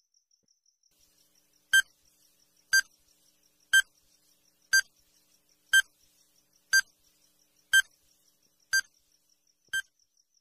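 Electronic countdown-timer beeps, nine short identical beeps once a second, the last one a little softer.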